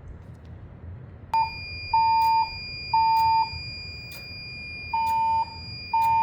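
Voice-evacuation fire alarm speakers of a Siemens Desigo Modular XLS-V system sounding the temporal-three evacuation tone, the alert that precedes the spoken evacuation message. It starts about a second in: three half-second beeps a second apart, a pause, then three more. At the same moment a steady high-pitched tone comes on, with faint clicks about once a second.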